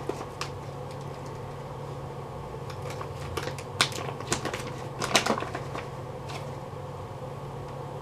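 A steady low hum with a cluster of light clicks and taps about halfway through, two of them louder than the rest.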